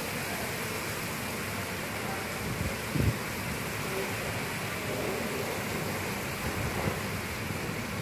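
Heavy rain pouring steadily in a constant hiss, with a brief low thump about three seconds in.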